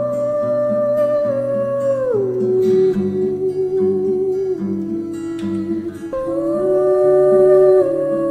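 Slow background music: a melody of long held notes, each sliding down in pitch, over a plucked accompaniment of repeating low notes. The melody phrase comes twice, the second starting about six seconds in.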